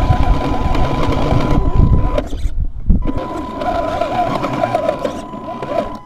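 Brushed electric motor and geartrain of an RC rock crawler whining under load as it climbs rock, heard from a camera mounted on the chassis, with irregular knocks from the tyres and chassis on the rock. The whine stops for under a second about two seconds in, a sharp knock comes just before it picks up again, and it fades near the end.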